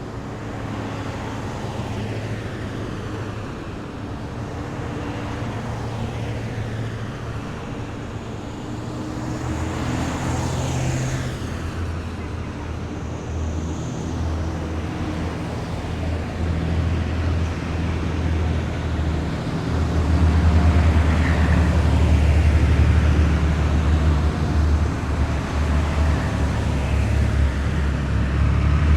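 Heavy military vehicles driving past in a column, their engines running as a low, steady rumble that grows louder from about twenty seconds in. A brief high whine sounds at about ten and again at fourteen seconds.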